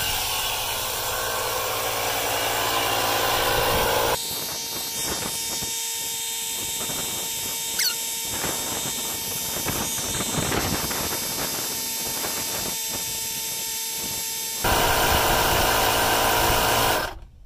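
Cordless tire inflators running as they pump up tires, in spliced stretches: a DeWalt 20V inflator first, then the Ryobi 18V inflator. The Ryobi's run cuts off near the end as it finishes filling its tire.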